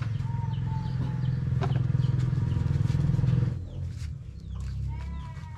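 A loud, low, fast-pulsing rumble like a nearby motor runs until about three and a half seconds in, then fades. Near the end a rooster crows: one long, held call with a rising start.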